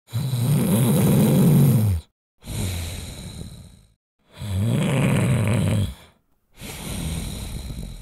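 A sleeping man snoring: two buzzing snores on the breath in, each followed by a short pause and a softer breath out that fades away.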